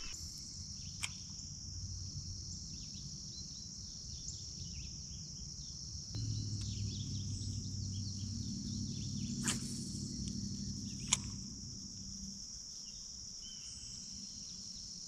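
Steady high-pitched chorus of insects such as crickets, with a low rumble from about six to twelve seconds in and three sharp clicks.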